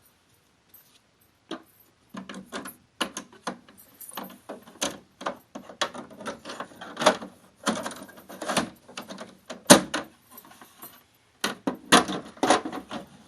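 Irregular clicks, knocks and rattles of the Ivation 70-pint dehumidifier's hard plastic parts being handled around its washable filter, in quick clusters with short gaps.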